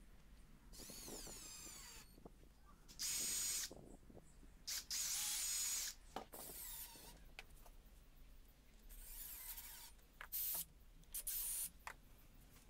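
Cordless drill-driver driving 1-inch screws into wooden trim in a series of short runs, the motor whining up as each one starts and stopping after a second or less.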